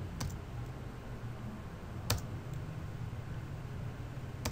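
Three sharp clicks about two seconds apart from a computer mouse and keyboard being used to select and delete lines of code, over a low steady hum.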